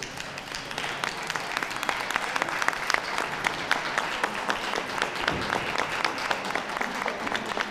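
Crowd applauding: many hands clapping, building up over the first second and then keeping up steadily.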